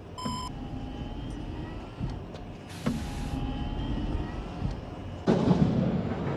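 Giant robot Moguera's mechanical sound effects: a low mechanical rumble with faint whining tones and a short electronic beep near the start, a brief hiss with a thump around three seconds in, then a loud blast of noise starting about five seconds in.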